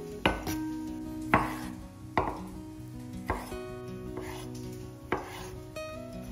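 Santoku knife chopping cherry tomatoes on a bamboo cutting board: about six sharp knocks of the blade against the wood, roughly one a second.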